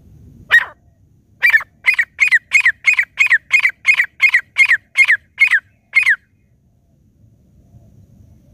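Grey francolin calling as a decoy lure for wild francolins: one harsh note, then a loud, quick run of about a dozen repeated calls, roughly three a second. Each call dips slightly in pitch, and the run stops abruptly about six seconds in.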